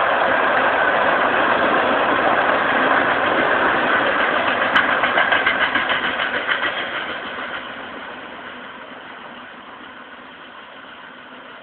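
Potash freight train rolling past on the rails: steady wheel-on-rail noise, a quick run of wheel clicks about five seconds in, then the sound fades as the train moves away.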